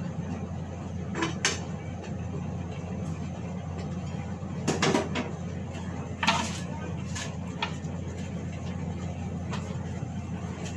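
Scattered clinks and knocks of a cooking utensil against a wok and pans, a cluster of them around the middle, over a steady low hum.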